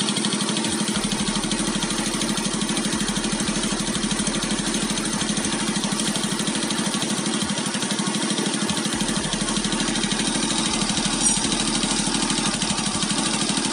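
Honda EX5 Dream's single-cylinder four-stroke engine idling steadily after a top overhaul, at a constant, even beat.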